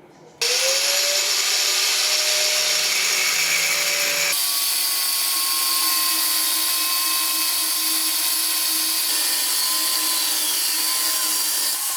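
Electric power tool starting up about half a second in, its motor pitch rising, then running with a loud hiss. The pitch shifts abruptly about four seconds in, and it cuts off just before the end.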